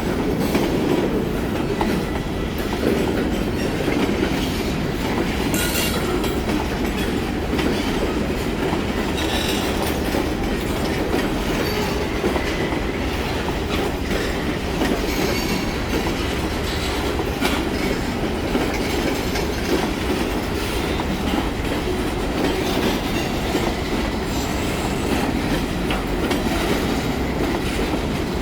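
CN freight train's cars rolling past at a steady speed: the continuous clatter of steel wheels on the rails, without any horn.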